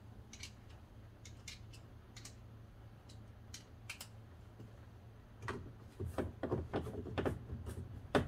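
Light clicks of a small bolt and hand tools working in a car door, scattered at first, then a quicker run of clicks and rattles starting about five and a half seconds in, as the fastener is driven back into the door latch assembly.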